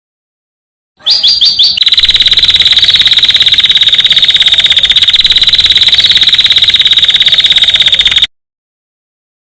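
Kecial kombok (cucak kombok) song. About a second in there are four quick rising notes, then one long, fast, even high trill on a single pitch that cuts off abruptly after about seven seconds.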